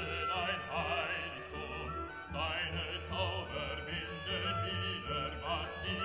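Background classical music in an operatic style: a wavering, vibrato-laden melody sweeps upward in pitch about three times over a steady low accompaniment.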